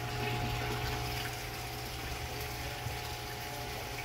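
Aquaponics system's water pumps and circulating water: a steady mechanical hum over running water, unchanging throughout.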